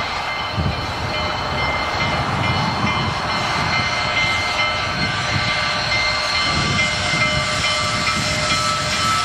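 Union Pacific 844, a 4-8-4 steam locomotive, working its train along the line: low exhaust chuffs come roughly every half second to second over a steady mechanical hum with a few thin steady high tones.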